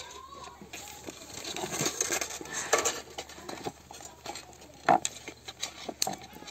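A thin wire worked around the wall of a plastic drink bottle to cut it: the plastic crackles and crinkles with scattered sharp clicks, the sharpest about five seconds in.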